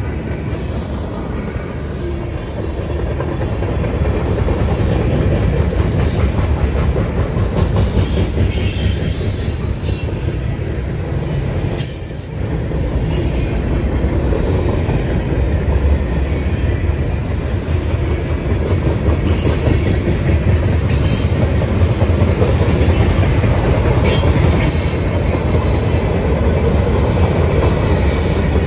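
Freight cars of a loaded CSX train rolling past at speed: a loud, steady rumble and clatter of steel wheels on the rails, with brief high-pitched wheel squeals now and then.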